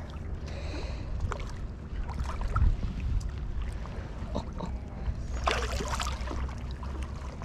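Splashing and slapping of water as a hooked bream struggles at the water's edge and is landed by hand, with a louder splash about five and a half seconds in, over a low steady rumble.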